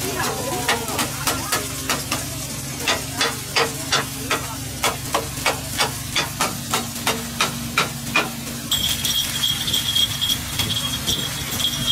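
Metal takoyaki picks clicking against the takoyaki pan as the balls are turned, about three taps a second with a short pause about two seconds in, over a steady low hum. Near the end a high steady hiss comes in.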